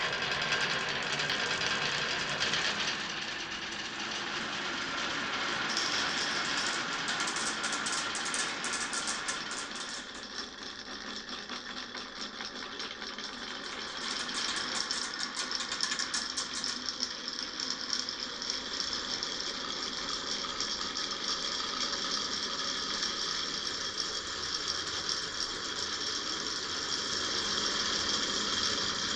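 Many marbles rolling and clattering down a marble run, a continuous dense rattle that thickens into quick runs of clicks at times.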